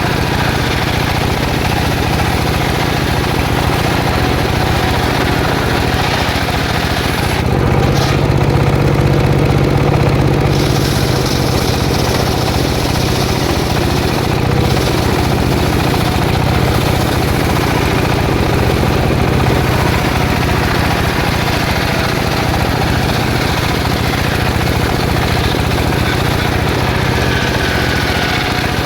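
Engine-driven circular saw running steadily while cutting jackfruit wood, louder for a few seconds about eight seconds in.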